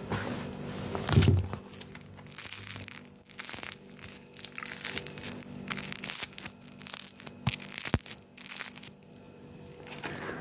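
Close-up chewing of a toasted sandwich: crunching and crackling bites, mixed with rubbing of the phone being handled. A short, loud, low sound about a second in, and two sharp clicks later on.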